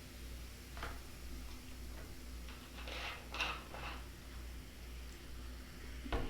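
Close-miked eating sounds from chewing fried chicken: a handful of short wet clicks and crunches, the loudest about halfway through and just before the end, over a low steady hum.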